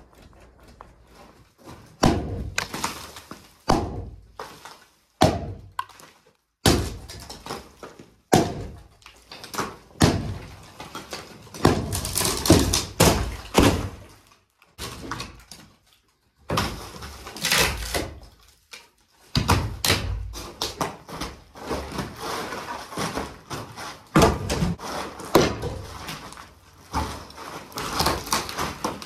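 Demolition of a wooden lath-and-plaster partition wall: many irregular heavy thuds and knocks, with rough crashing stretches of plaster and wood debris falling.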